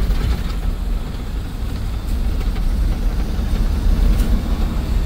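Cargo van driving on a wet road, heard from inside the cab: a steady low engine and road drone with tyre hiss.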